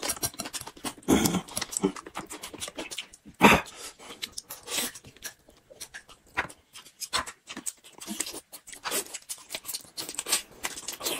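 Close-up eating sounds of lamb shank being chewed and sucked off the bone: irregular wet smacks and clicks, with two louder slurps about a second in and about three and a half seconds in.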